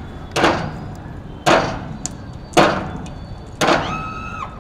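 Axes chopping into a wooden beam: four heavy strikes, a little over a second apart.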